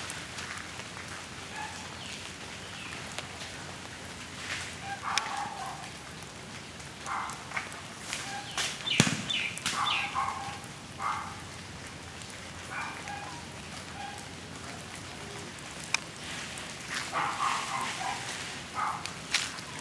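Garden ambience: a steady hiss with short calls scattered throughout, several of them in quick runs, and a sharp knock about nine seconds in and again near sixteen seconds.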